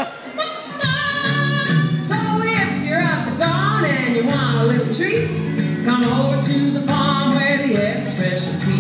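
Recorded song with a singer over a band accompaniment, with steady repeating bass notes, played for a dance routine; it dips briefly just after the start, then carries on.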